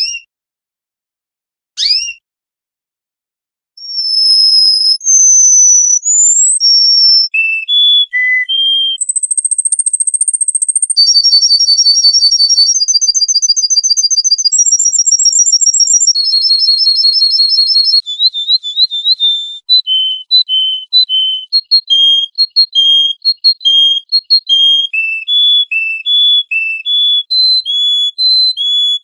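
A songbird singing: two short rising chirps, then from about four seconds in a long, varied song of high whistled notes, fast trills and quick repeated notes alternating between two pitches.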